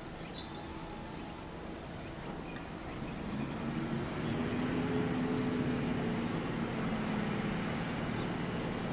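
Electric train running past, its motor tone gliding up in pitch about three seconds in, then holding steady as it grows louder.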